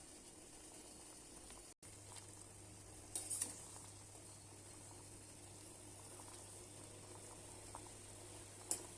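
Faint, steady sizzling and bubbling from a pan cooking on the stove. It breaks off for an instant about two seconds in, and a utensil clinks against the pan briefly a little after three seconds and again near the end.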